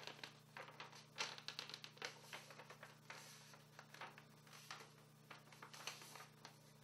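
Faint rustling and snipping of a paper template being handled, folded and cut with scissors: a scatter of soft, irregular clicks and crinkles over a low steady hum.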